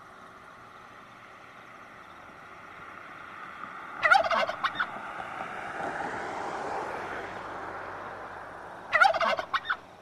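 A tom turkey gobbling twice, about five seconds apart, each gobble a quick run of rapid pulses lasting under a second. There is a steady hiss behind the calls that swells between them.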